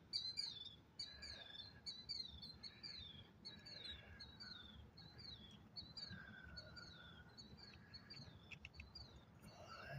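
Faint bird chirping in the background: short, high, falling notes repeated about twice a second, with a few faint clicks near the end.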